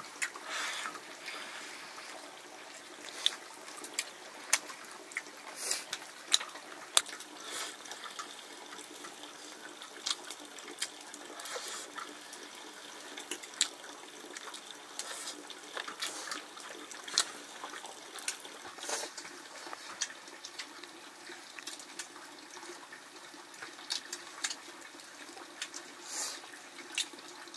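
Steady sound of water, with irregular sharp clicks and knocks scattered throughout.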